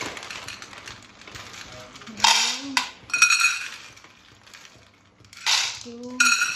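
Dry macaroni poured from a plastic packet into a plastic bowl, the hard pasta pieces rattling and clattering in several bursts as the packet is tipped.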